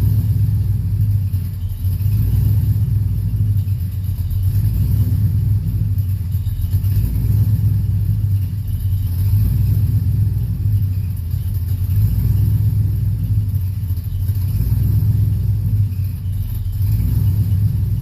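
Ford Mustang 4.6-litre V8 idling with a low, continuous rumble that swells and eases a little; the idle is not quite settling.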